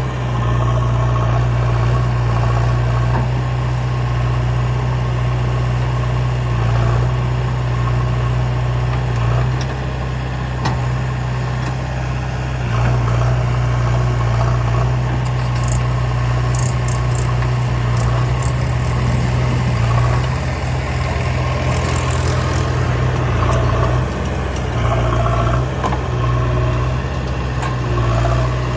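Heavy diesel engine running steadily with a deep hum, with a few brief clicks and scrapes around the middle.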